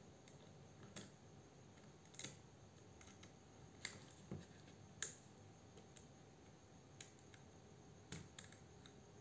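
Faint, scattered clicks and small plastic taps, about a dozen at irregular intervals, from handling a bare Milwaukee cordless saw body and pressing test wires onto its battery terminals. The saw's motor does not run.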